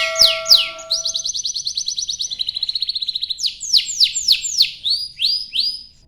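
Canary singing a long, fast song: rolling trills of rapid repeated notes, turning about halfway through into a run of quick downward-sweeping notes.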